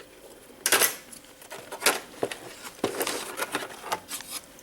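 Plastic clips of an instrument cluster panel being pried loose with a bent pry tool: a series of sharp plastic clicks and light rattles, about a dozen irregular snaps, the loudest a little under a second in and around two seconds in.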